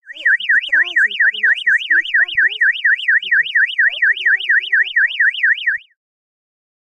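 12 V DNI electronic siren sounding a fast warble, its high pitch sweeping up and down about four times a second, then cutting off sharply near the end.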